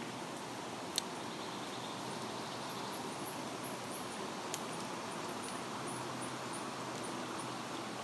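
Forest pond ambience: a steady outdoor hiss with a run of faint, very high, evenly repeated chirps through the middle, and a sharp click about a second in.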